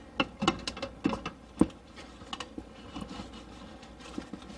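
A series of light knocks and clicks from parts being handled and set down, the loudest about a second and a half in.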